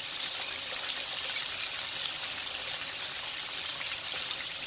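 Flour-coated chicken pieces frying in a skillet of hot oil: a steady sizzle of bubbling oil.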